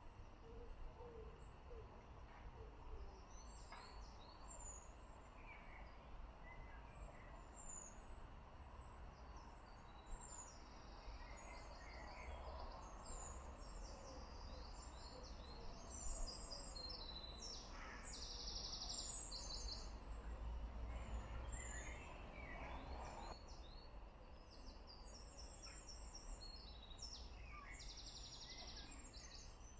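Songbirds chirping and trilling on and off in riverside trees, over a faint low rumble.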